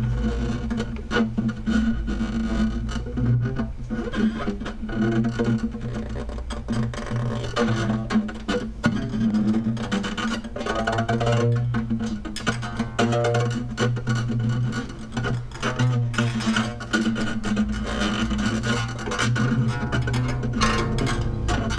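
Acoustic guitar music: plucked notes over a low, steady drone.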